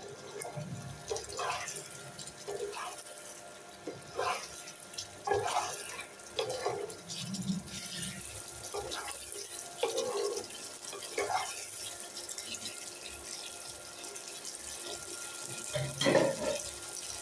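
Thick coconut-milk gravy with hog plums sizzling and bubbling in a wok as it is cooked down. A wooden spatula stirs and scrapes through it in irregular strokes, about one a second.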